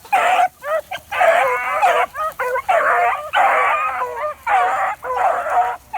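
A pack of beagles baying together while running a rabbit's track, several overlapping high voices in a near-continuous chorus with short breaks.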